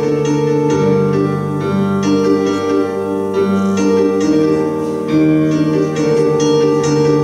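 Instrumental music: a keyboard plays a steady, repeating pattern of notes over lower notes that change every second or so.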